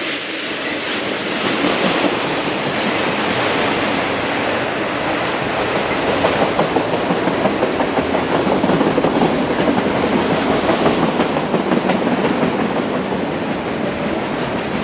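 Empty autorack freight cars rolling past on steel wheels: a continuous rumble and rattle of wheels on rail, with quick, uneven clacking through the middle. A faint high squeal sounds briefly near the start.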